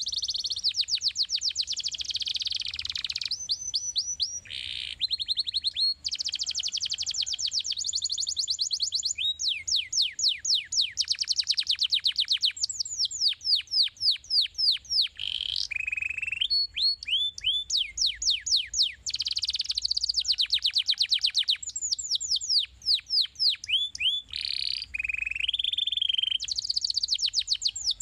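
Domestic canary singing a long, unbroken song: fast trills and rapid runs of repeated falling notes, switching to a new phrase every second or two.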